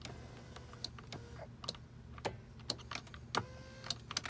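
Volvo XC90 power seat motor running as the passenger seat controls are tested: a steady low hum with a dozen or so sharp clicks. A higher, steady whine joins about three and a half seconds in.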